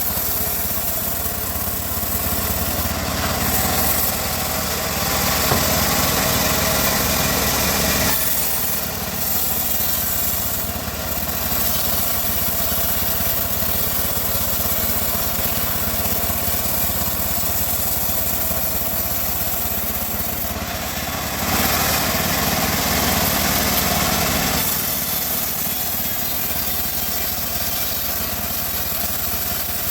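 Bandsaw running and sawing wood, with a steady engine-like drone that grows louder for a few seconds twice.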